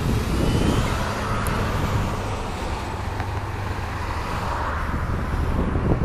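Boeing 747-400's four jet engines at takeoff power, a steady low roar as the airliner climbs out after takeoff.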